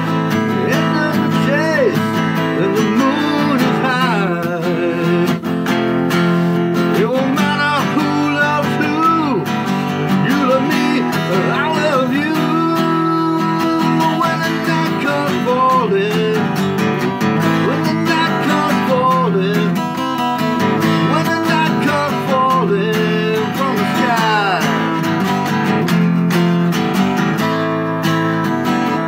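Acoustic guitar strummed continuously, playing the chords of a song.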